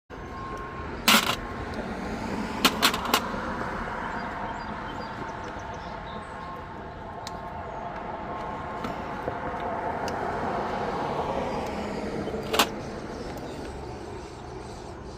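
Car engine running steadily, with a few sharp clicks: one about a second in, three quick ones nearly three seconds in, and one near the end.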